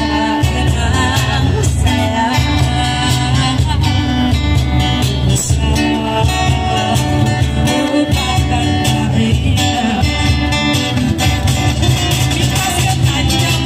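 Live guitar band playing a song through a PA loudspeaker, with a heavy bass line, and a woman singing into a microphone.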